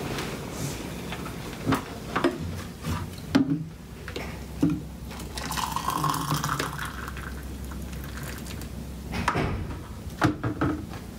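Hot water poured from a plastic electric kettle into a ceramic mug for several seconds, the pitch of the pour rising as the mug fills. It is framed by knocks and clicks as the kettle is handled and set back down.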